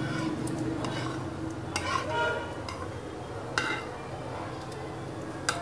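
A spoon scraping against a dish as cooked, syrupy pineapple pieces are pushed off into a bowl of whisked curd, with three sharp clinks of metal on the dish, over a low steady hum.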